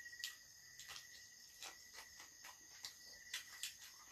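Quiet eating by hand: scattered soft clicks and smacks of chewing and handling seaweed, over a faint steady high-pitched tone.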